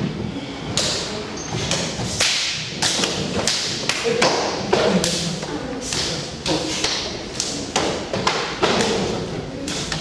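Karate partner-striking drill: hands and forearms slapping and thudding against bare arms and chests. Many pairs strike at once, so the impacts come irregularly, several a second and often overlapping.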